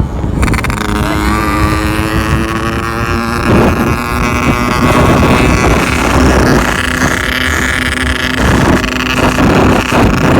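Yamaha RX-King 135cc single-cylinder two-stroke motorcycle engine running through a gutted ('bobokan') exhaust. The revs shift over the first few seconds, then the engine runs steadier with a rough, growling ('ngorok') note and scattered crackles. The note comes from a rich 'wet' carburettor setting.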